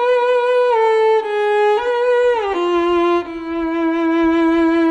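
Background music: a solo violin playing a slow line of falling notes, sliding down about two and a half seconds in and then holding one long low note.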